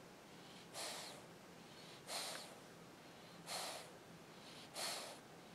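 English bulldog puppy breathing noisily, four breaths spaced evenly about one and a half seconds apart.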